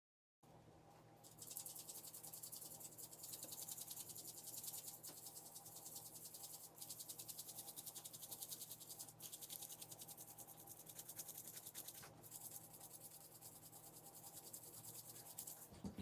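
Faint, rapid, steady insect trill with a few brief breaks, over a low steady hum.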